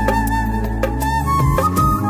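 Background music: a single-line melody over a steady bass, with percussion.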